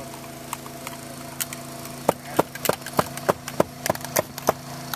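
Hammer driving nails into the roof deck: a run of about nine sharp, ringing strikes, a little over three a second, starting about two seconds in. A steady engine hum runs underneath.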